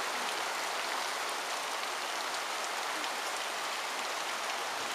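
Heavy storm rain pouring down steadily, a dense even hiss of rain hitting the ground and roofs.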